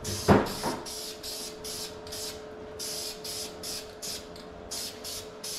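Aerosol spray-paint can hissing in quick short bursts, several a second, with brief gaps between squirts. A single sharp knock about a third of a second in.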